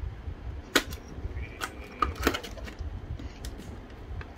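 Hard plastic clicking and knocking as a clear plastic display case is handled, with a few sharp taps, the loudest just under a second in and a quick cluster around two seconds in.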